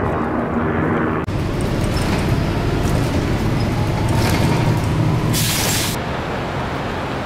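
City street traffic: vehicle engines running and rumbling past, with a steady low engine hum and a short sharp hiss about five seconds in. The first second is a steady drone of wind and engine over open water, cut off abruptly.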